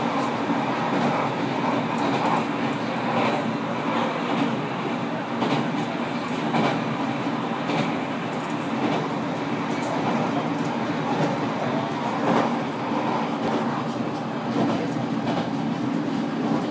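JR Kyushu 815 series electric train running, heard from inside the rear cab: a steady rumble of wheels on rail with irregular clicks and knocks as the wheels pass over rail joints.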